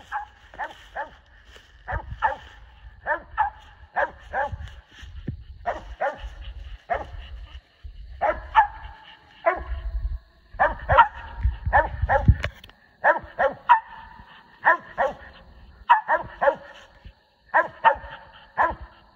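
Two squirrel dogs barking treed up a tree, short barks coming about one to two a second with their voices overlapping, the sign that they have a squirrel up the tree. A low rumble runs under the barking for part of the time.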